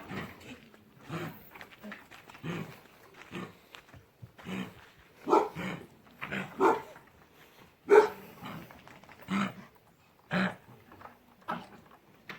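Dogs with kennel cough coughing: short harsh coughs about once a second, loudest near the middle.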